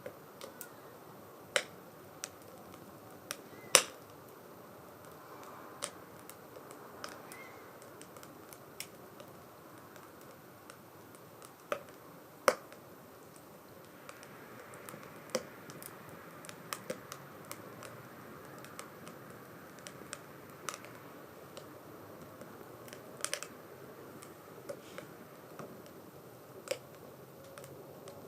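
Wood fire crackling in a small 2×4 STOVE wood stove: a soft steady hiss of flame with irregular sharp pops and snaps from the burning wood, a couple of them much louder than the rest.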